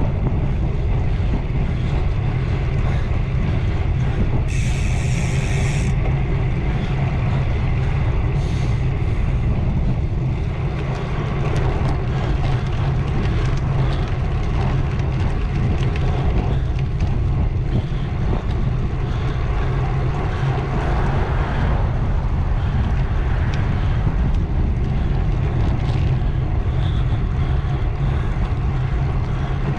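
Steady wind rush and low rumble on the action-camera microphone from a road bike riding at speed, with tyre and road noise mixed in. A brief hiss rises over it about five seconds in, and a shorter one near nine seconds.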